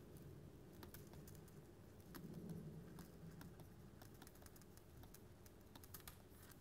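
Faint, irregular small clicks and taps of a stylus on a pen tablet as words are handwritten, over a low background hum.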